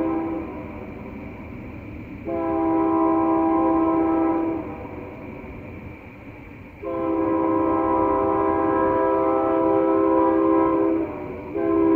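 Nathan K3LA five-chime air horn on Union Pacific 6663, a GE AC4400CW locomotive, sounding a multi-tone chord in long blasts over the low rumble of the approaching train. One blast ends just after the start, a second lasts about two seconds, and a third of about four seconds dips briefly near the end before carrying on.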